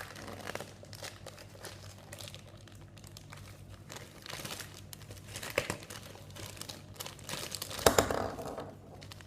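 Happy Meal toy packaging being crinkled and torn open by hand, with a louder stretch of crinkling and ripping about eight seconds in.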